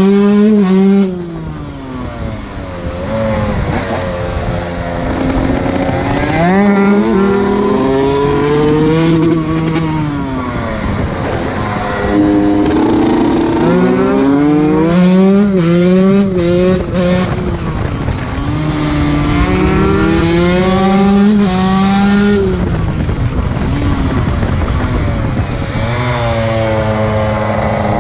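125 cc two-stroke dirt bike engine being ridden hard, revving up and dropping back over and over as the throttle is opened and closed through the gears. There is a noisy hiss over it.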